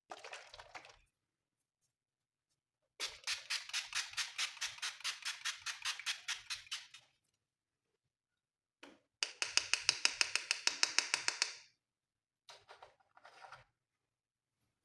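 Glossy slime being squished and poked by hand, giving fast, sticky clicking pops at about five a second. They come in several bursts, the two longest lasting three to four seconds, with dead silence between them.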